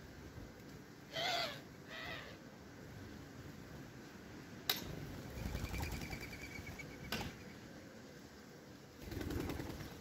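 Birds at a seed feeder: two short calls about a second apart near the start, two sharp knocks in the middle, a faint thin trill, and a brief rush of noise near the end, over a steady hiss.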